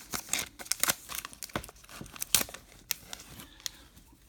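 Plastic wrapper of a baseball card pack crinkling and crackling as it is torn open and handled, the crackles dying away near the end.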